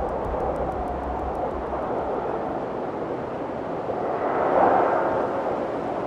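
Storm at sea: a steady roar of gale wind and rough, breaking water, swelling to its loudest about four and a half seconds in.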